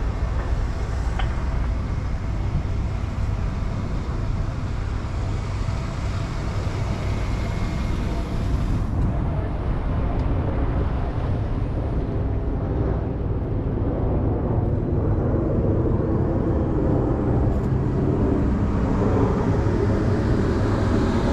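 Car running, a steady low rumble of engine and road noise heard from inside the car.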